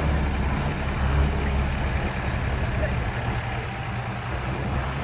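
Heavy diesel engine of earthmoving machinery running steadily at low revs, easing slightly quieter toward the end.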